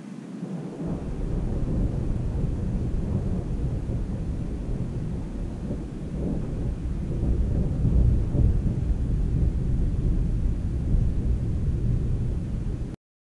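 Long rolling rumble of thunder. It builds about a second in, is loudest around the middle, rumbles on, and cuts off abruptly near the end.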